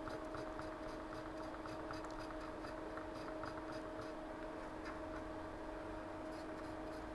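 Cotton swab wet with isopropyl alcohol rubbing flux residue off a circuit board: faint scratchy rubbing with small ticks, over a steady low electrical hum.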